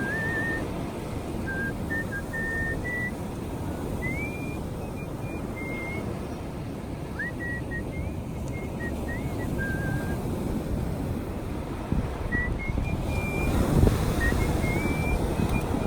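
A person whistling a melody by mouth in artistic whistling style: a single pure tone moving through short held notes and quick upward slides, pausing for about two seconds past the middle before picking up again. Underneath runs a louder steady low rumble.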